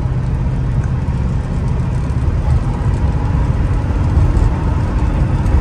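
A 1964 Ford Custom 500's rebuilt FE 390 V8 with dual four-barrel carburetors running at a steady cruise, heard from inside the cabin as a low, even rumble.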